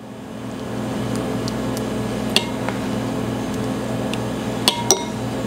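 A steady machine hum that swells in over the first second and then holds, with a few light clicks and scrapes of a spoon spreading sauce in a plastic tray.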